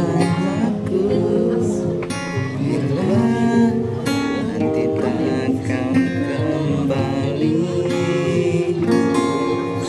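A man singing a slow song to his own acoustic guitar, the chords strummed beneath a held, bending vocal line.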